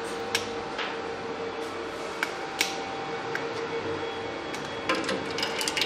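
Common-rail diesel injector test bench running with a steady hum and a steady tone, with scattered sharp clicks and taps, most of them near the end.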